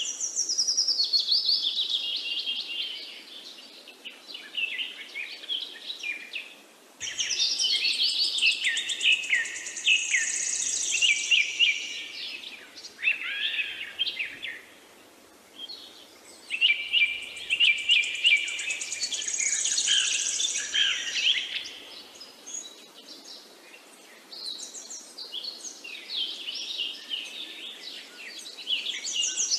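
Birdsong: busy chirping and warbling calls in phrases several seconds long, separated by short lulls, with a high, rapid pulsing trill at times.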